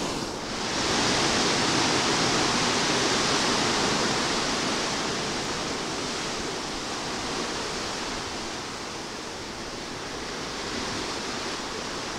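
Small ocean waves washing in over the sand: a steady rush of surf that swells about a second in and slowly eases off.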